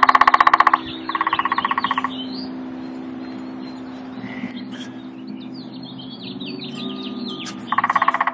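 A woodpecker drumming in quick rolls of about a second each, two at the start and one near the end, with songbirds chirping in rapid high notes in between.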